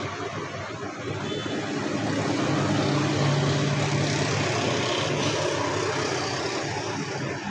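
A steady engine drone with a low hum. It grows louder about two seconds in, then slowly eases off.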